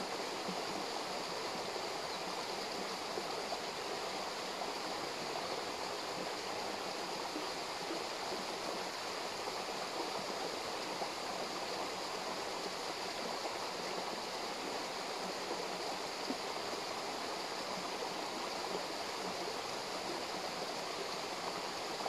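Running water of a stream below a waterfall, rushing steadily and evenly without a break.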